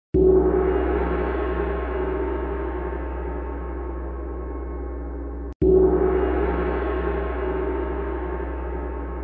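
End-screen sound effect: a rich ringing tone that starts suddenly and slowly fades. It is cut off and starts over again about five and a half seconds in.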